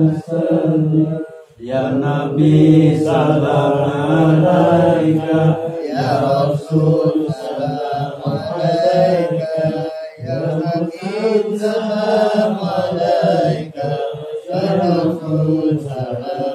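Men's voices chanting sholawat together, a continuous melodic devotional recitation that dips briefly about a second and a half in and again near the middle.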